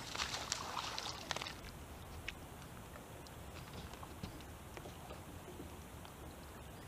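A small bass splashing at the water's surface for about a second and a half as it is reeled in beside the boat, followed by faint scattered clicks.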